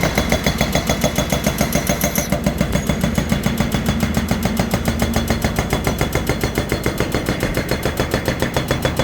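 Excavator-mounted hydraulic rock breaker hammering steadily at about seven blows a second, over the excavator's engine running.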